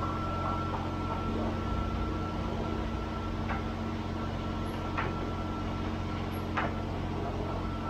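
Steady machine hum of self-service car wash equipment with a thin steady whine over it, and three brief clicks about three and a half, five and six and a half seconds in.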